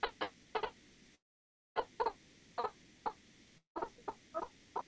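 A woman's voice over a failing video-call connection, breaking up into short clipped fragments of syllables with gaps, and cutting out completely twice.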